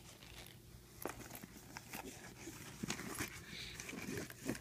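Items being handled and slid into a handbag: irregular rustles, light knocks and clicks.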